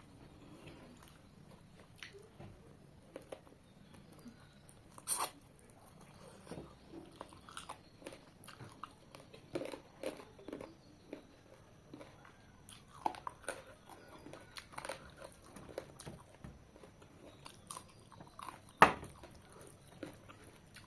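Close-up eating sounds of a person chewing and biting into chicken curry: irregular wet mouth clicks, smacks and crunches. Two sharper cracks stand out, about five seconds in and, loudest, near the end.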